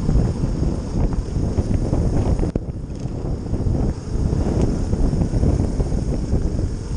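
Single-cylinder four-stroke trail bike being ridden along a dirt track, its engine heard under heavy wind buffeting on the bike-mounted camera's microphone. There is a brief dip in the noise about two and a half seconds in.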